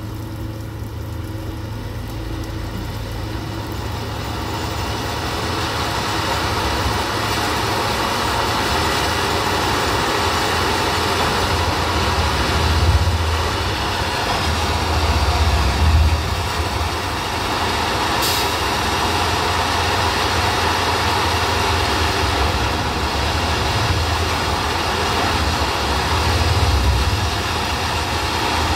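Plasser & Theurer 08-32 U ballast tamping machine running on its diesel engine as it creeps along the track, growing louder as it draws nearer. Its low rumble swells three times.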